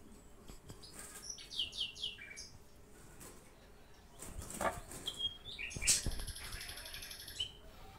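A small bird chirping in short falling notes, then a longer buzzy chatter. A sharp knock about six seconds in is the loudest sound.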